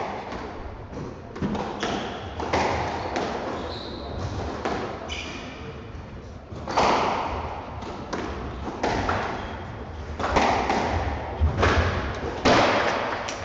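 Squash rally: the ball is struck by rackets and smacks off the court walls in an irregular run of sharp hits, with a few short high squeaks from shoes on the court floor.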